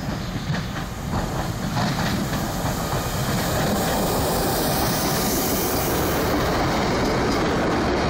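Two coupled DB Regio Bombardier Talent 2 electric multiple units rolling past close by. As the train nears, its wheels click over rail joints, then the sound grows into a steady rushing rumble with a hiss that is strongest around the middle.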